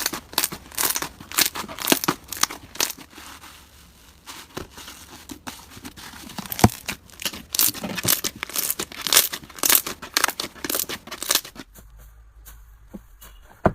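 Slime being worked by hand, giving dense, irregular crackles and crinkly pops. They stop abruptly near the end, leaving a much quieter stretch with a few faint ticks.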